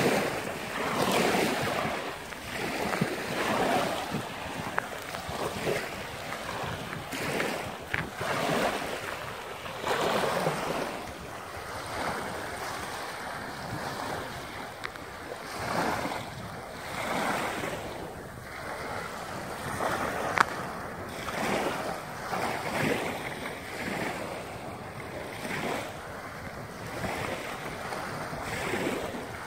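Small waves washing up onto a pebble beach and drawing back, the surf swelling and falling every couple of seconds, with wind buffeting the microphone. A single sharp click about twenty seconds in.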